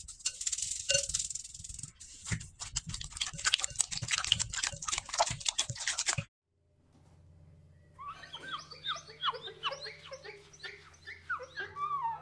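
Shiny blue foil sheets being crushed and crumpled by hand in slime, giving a dense run of crinkling crackles that cuts off suddenly about six seconds in. After a short gap comes a run of short, high, squeaky chirps that rise and fall, over a low steady hum.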